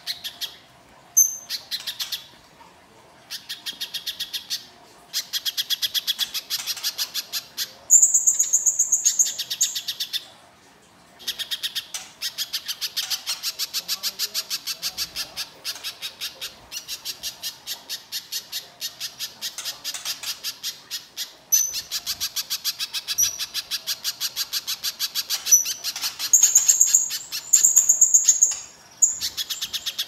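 Little spiderhunter singing a long, harsh chatter: rapid strings of repeated notes running for several seconds at a time with brief pauses between them. Twice, about eight seconds in and near the end, a loud high thin note is held for a second or more over the chatter.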